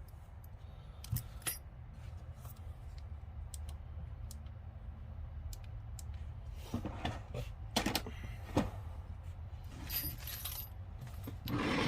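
Small metal combination wrenches clinking and knocking against each other as they are handled, in scattered clicks that cluster together in the latter half.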